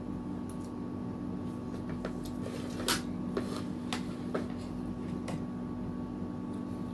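Quiet eating sounds: a metal spoon clinking now and then against a ceramic soup bowl and plate, a few sharp clicks, the loudest about three seconds in, over a steady background hum.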